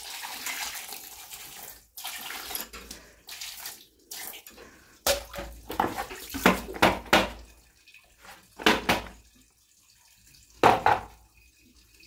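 Water poured from a plastic jug splashing over a washing machine's plastic pulsator (wash plate), rinsing black sludge off it; the steady pour stops about two seconds in. Then come short, irregular wet splashes and scrubbing as the plate is rubbed clean by hand.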